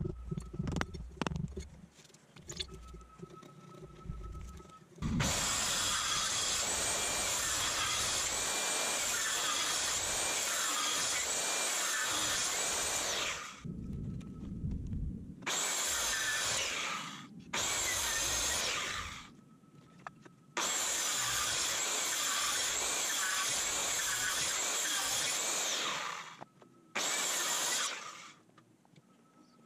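Handheld electric power tool running in bursts on wood: a few light knocks first, then the motor runs for about eight seconds, stops, gives two short bursts, runs again for about five seconds and gives one more short burst near the end.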